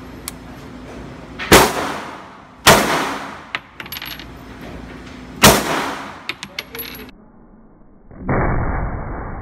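Glock 19 pistol firing 9mm 124-grain FMJ rounds: three sharp shots, the first two about a second apart and the third about three seconds later, each ringing off in an indoor range. Light metallic tinkles come between them, typical of spent brass landing. Near the end, after a cut, comes a duller, drawn-out boom.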